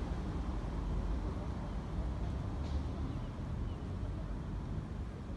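Low, steady rumble of wind buffeting the microphone, with faint voices in the distance.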